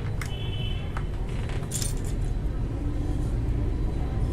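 A few sharp clicks and small clinks from handling mechanical keyboard switches and keycaps, over a steady low rumble.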